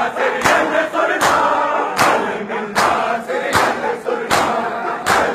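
Large crowd of men chanting a noha together, with loud chest-beating (matam) in unison: sharp massed hand-slaps on the chest, about one every 0.8 s, keeping time with the chant.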